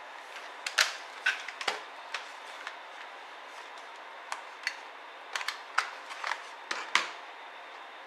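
Sharp plastic clicks and knocks as a ThinkPad X301 laptop is turned over and its battery latches are slid and the battery pulled out. About fifteen irregular clicks, the loudest about a second in and near the end.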